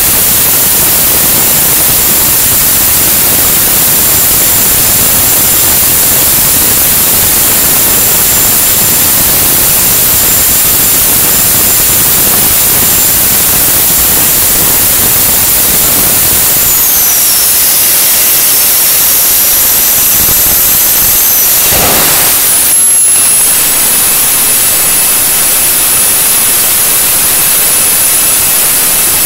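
Homemade turbojet engine running with a loud, steady rushing noise and a high turbine whine. About 17 seconds in the whine slides down as the engine is throttled back. About 22 seconds in a sudden burst of noise comes as the afterburner lights, and the whine then settles higher.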